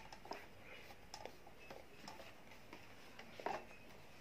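Faint scattered clicks and ticks of a screwdriver turning out a small screw from a stand fan's plastic motor housing, with one sharper click about three and a half seconds in.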